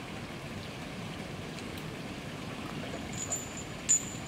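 Steady outdoor background hiss with no distinct source. Near the end, thin high-pitched chirps begin, with a sharp click about four seconds in.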